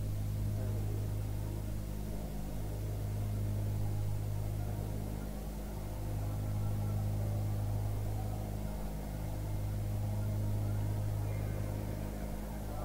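Low steady hum and faint hiss of an old live Quran recitation recording, heard in a pause between the reciter's verses.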